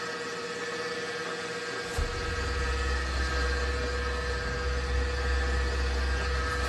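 Steady machine hum with a whine in it. About two seconds in, a click brings in a deep, steady low rumble that continues from then on.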